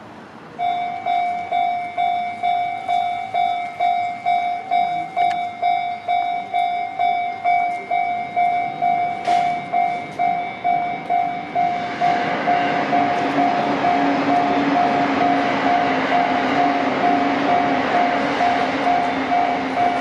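Japanese railway level-crossing warning bell starts ringing about half a second in, an even, pulsing electronic ding that warns of an approaching train. From about twelve seconds in, the running noise of a train builds under the bell and stays loud.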